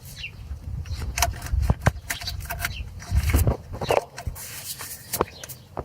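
Irregular clicks and scrapes of hands and an alligator clip being worked into a cramped space behind a car engine, fitting the clip onto the starter motor's small solenoid terminal, over a low rumbling background.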